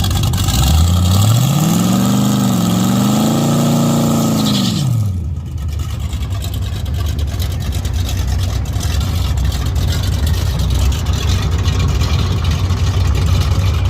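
V8 drag car accelerating hard at full throttle, its engine pitch climbing with a brief dip at a gear change, then dropping away about five seconds in as the throttle comes off. A steady low engine rumble follows.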